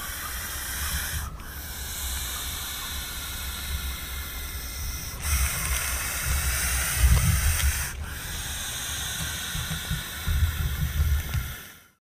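A snake hissing in long, steady breaths, broken by short pauses about a second, five seconds and eight seconds in. A low rumble runs underneath and swells briefly about seven and eleven seconds in.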